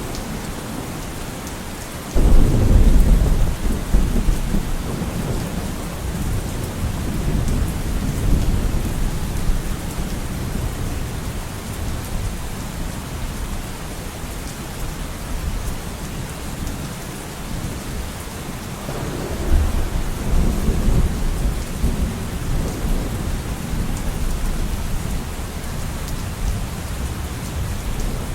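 Steady rain falling, with two low rolls of thunder: a sudden one about two seconds in that rumbles on for several seconds, and another about two-thirds of the way through.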